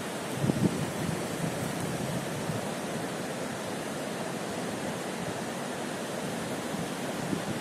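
Steady rushing noise of the Guadalquivir in flood, its swollen water pouring past. Two brief low thumps on the microphone, about half a second in and near the end.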